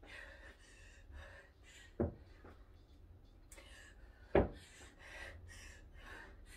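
Two dull thumps about two and a half seconds apart, against faint low background noise.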